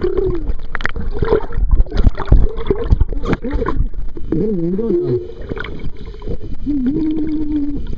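Water sloshing and bubbling around a camera submerged in a swimming pool, heard as a heavy muffled rumble with irregular knocks. A muffled voice wavers up and down through the water about halfway through and again near the end.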